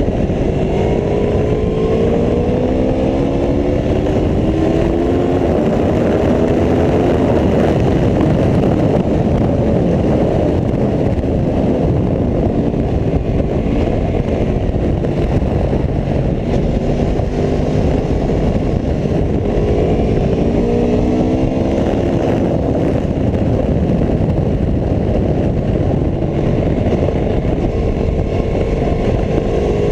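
Aprilia Tuono 1100RR's V4 engine at speed on track, under a heavy rush of wind. Its note climbs several times near the start, again around two-thirds of the way through, and once more near the end as the bike accelerates through the gears.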